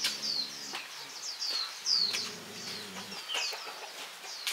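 A small bird calls a rapid series of short, high, falling chirps, about two a second. Under it are low, drawn-out clucks from chickens and a few sharp clicks.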